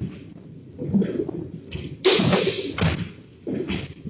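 Irregular knocks and thuds with a low rumble underneath as a house and its fittings shake in an earthquake. The loudest is a bang about two seconds in.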